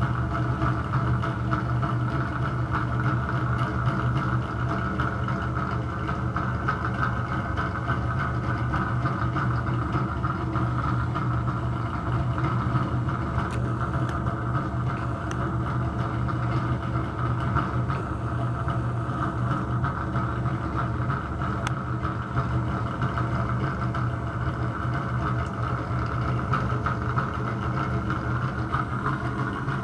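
Bathroom exhaust fan running with a steady drone, a low hum plus a higher whirr, that the owner puts down to a bad motor or fan bearing.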